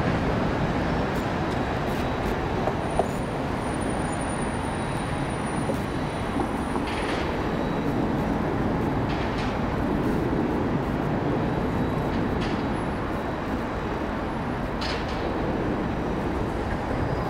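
Jet airliner engines heard from an airport viewing area, a steady deep rumble with no break.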